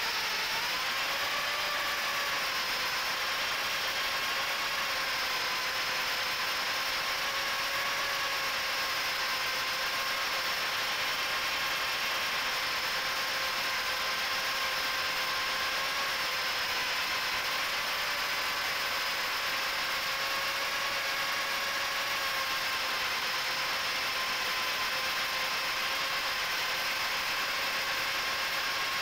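Micro FPV quadcopter's HGLRC 1104 7500 kV brushless motors spinning Gemfan 3018 props, heard from on board: a steady buzzing whine over a rushing hiss, its pitch dipping and recovering slightly twice with throttle changes.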